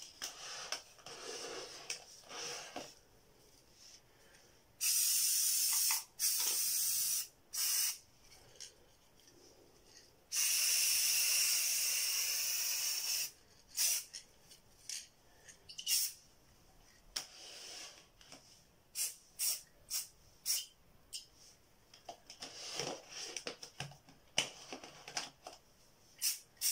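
An aerosol can of clear gloss sealant spraying in hisses: three short sprays about five seconds in, then one long spray of about three seconds starting about ten seconds in. A string of short clicks and taps follows.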